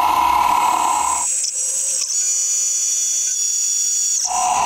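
Grizzly G0704 benchtop CNC mill running, its spindle turning a 2-inch carbide face mill at an aluminium block. A steady machine drone gives way about a second in to a high-pitched whine of several steady tones. The drone returns abruptly near the end.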